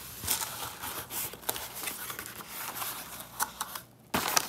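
Cardboard shipping box being opened by hand: flaps scraping and rustling as they are pulled open and folded back, with a brief lull just before the end.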